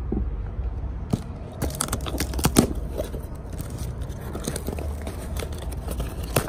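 Cardboard shipping box being handled and turned in the hands, giving a run of crackling clicks and scrapes from about a second in.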